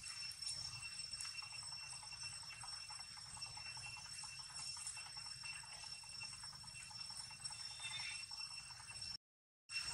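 Outdoor ambience: a steady high-pitched drone, with light rustling and crackling of dry leaves as baby macaques move over stones and leaf litter. The sound cuts out for a moment near the end.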